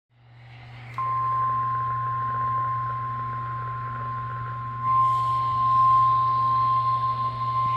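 NOAA Weather Radio warning alarm tone, the steady 1050 Hz beep that precedes a warning broadcast, heard through a weather radio's speaker. It switches on about a second in and holds unbroken over a steady low hum and faint static hiss.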